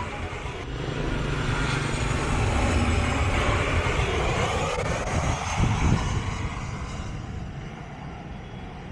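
Boeing 737-800's CFM56-7B turbofan engines passing low overhead on landing approach. A loud jet rumble and hiss swells, drops in pitch as the plane goes by, then fades away.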